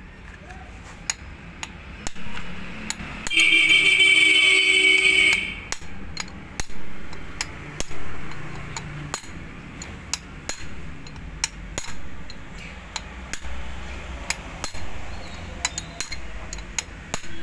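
Metal knocks of a steel rod struck as a drift, driving a camshaft bearing down into its seat in a Bajaj Discover 125 cylinder head; sharp knocks come roughly once a second, with light clinks between. About three seconds in, a loud steady tone with several pitches sounds for about two seconds and cuts off.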